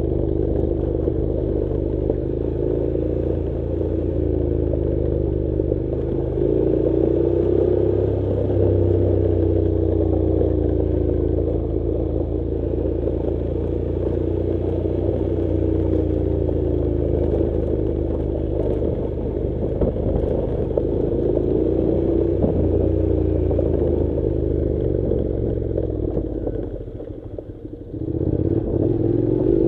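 Honda NC700 motorcycle's parallel-twin engine running at low, fairly steady revs on a rough dirt track, its note rising and falling gently with the throttle, with rattling from the bike over the stones. Near the end the engine note drops away briefly, then picks up again.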